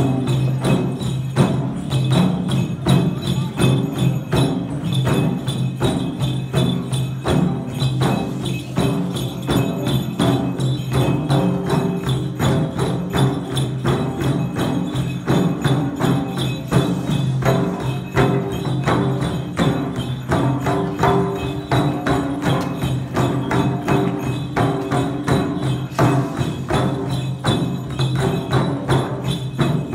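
Limbu chyabrung drums, two-headed barrel drums, beaten in a steady, fast, repeating dance rhythm over continuous musical accompaniment.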